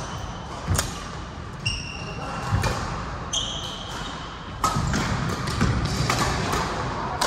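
Badminton rally in an echoing sports hall: sharp racket hits on the shuttlecock, a few seconds apart, and court shoes squeaking briefly on the floor twice as the players move.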